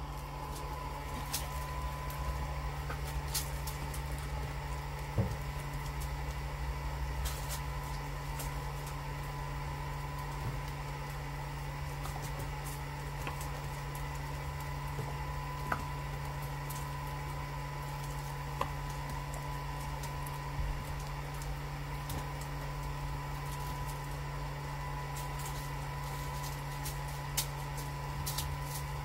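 Small electric motor of a bubble machine humming steadily, with a few scattered sharp clicks and taps.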